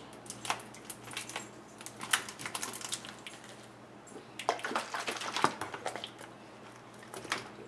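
Thin plastic 2-liter soda bottles, joined neck to neck and holding water, clicking and crackling irregularly as they are gripped, swirled and turned over.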